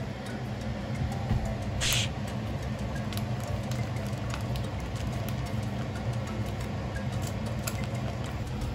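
A plastic sauce sachet is torn open and squeezed over a bowl of bean sprouts, giving a short sharp rustle about two seconds in and a few faint crinkles. A steady low hum runs underneath throughout.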